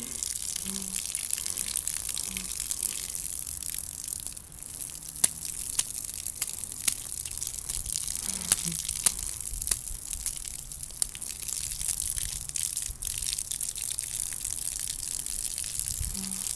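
A thin jet of water spraying up from a lawn, hissing steadily, with sharp splashes now and then as a toddler's hands strike the stream and the drops scatter.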